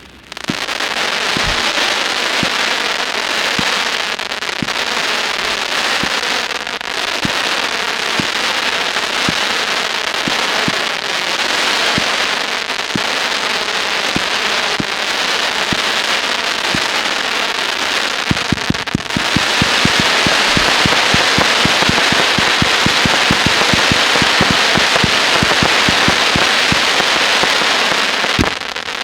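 Low-noise consumer fireworks going off: a steady dense hiss with many small sharp pops scattered through it. About two-thirds of the way through, the pops come much faster and closer together for the rest of the burst.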